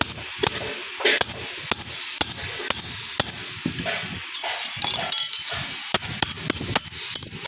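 Blacksmith's hammer striking the steel of a sickle being forged: quick, irregular blows, about two a second, with a metallic ring.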